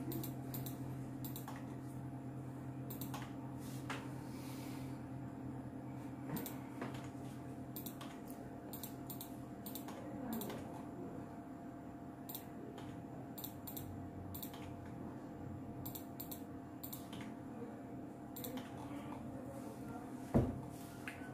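Computer keyboard keys tapped in irregular clicks over a steady low hum, with one sharper thump near the end.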